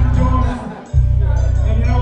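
Loud hip-hop beat with heavy bass from a live rap set over a club sound system. The beat cuts out briefly about half a second in and kicks back in just before the one-second mark.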